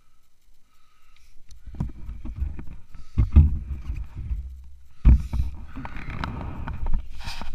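Irregular rubbing, rustling and knocks with low rumbles from an action camera being moved and handled, the two loudest bumps about three and five seconds in.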